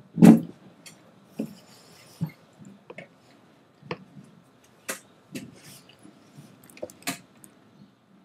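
Handling noise as an acoustic guitar is picked up and settled into position: scattered knocks, taps and rustles, the loudest a single thump right at the start.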